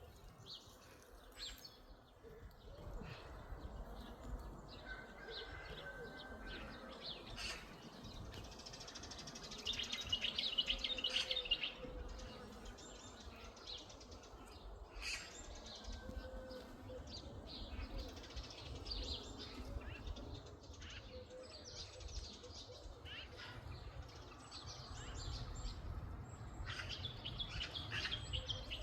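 Small birds chirping and singing in short high calls, with a denser, louder run of song about ten seconds in and another cluster near the end, over a steady low rumble.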